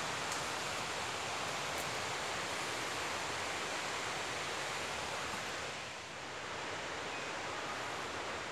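Steady rush of river water over falls, heard through the forest, dipping briefly about six seconds in.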